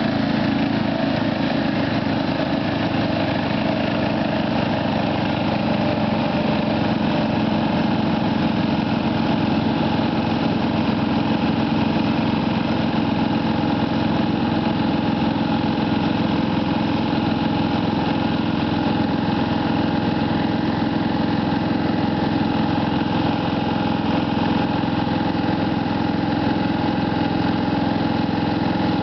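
Ride-on lawn mower engine running steadily at a constant pitch, heard close up from the driver's seat.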